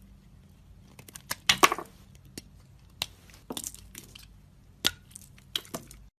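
A blade cutting into a bar of soap, making crisp crunching, crackling cuts in three or four short bursts, with the loudest group of cuts about a second and a half in and a single sharp click near the end.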